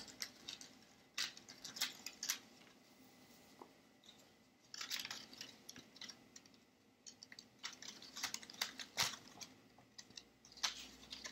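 Faint rustling and crinkling of construction paper in short, scattered bursts with small clicks, as glued paper fins are pressed onto a folded paper fish.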